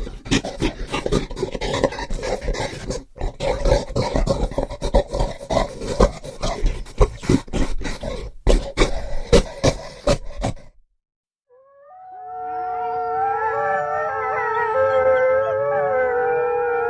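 A harsh, crackling run of rough growling sounds for about eleven seconds, then a short silence, then a chorus of several canines howling together, their long howls overlapping at different pitches.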